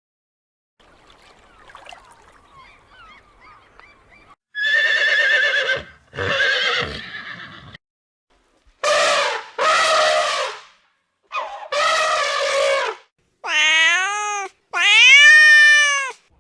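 Horses whinnying: about seven separate calls with short pauses between them, the first, about four seconds in, with a quavering pitch. Before the calls, faint rustling.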